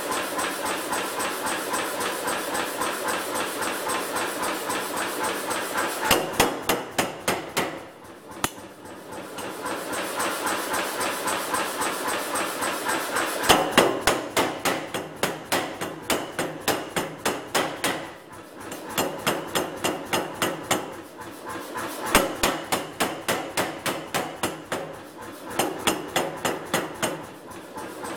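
Air power hammer forging hot steel in a tong-making jig die: runs of rapid, evenly spaced blows, several a second, broken by short pauses, over a steady mechanical noise.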